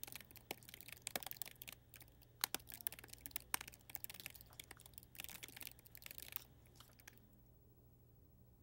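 Typing on a computer keyboard: a quick, irregular run of key clicks that stops about a second before the end.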